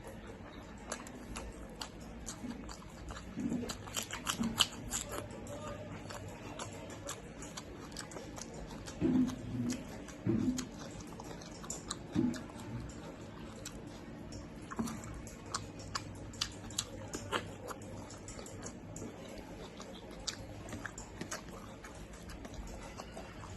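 Close-up mouth sounds of a person eating chicken and rice: chewing with many small wet clicks and smacks, and a few louder bursts now and then.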